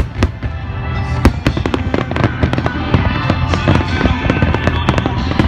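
Aerial fireworks bursting, many sharp bangs and crackles in quick succession that grow denser in the second half, with music playing along.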